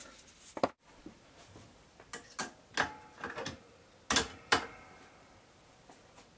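A series of sharp clicks and knocks from hard objects being handled, about eight spread over four seconds, the last two loudest and followed by a brief faint ringing.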